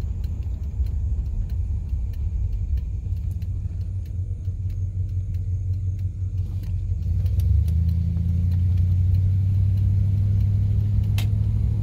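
Cabin sound of a 1970s Cadillac DeVille driving slowly: its big-block V8 and the road give a steady low rumble, which grows louder about seven and a half seconds in as the car speeds up. A single short click comes near the end.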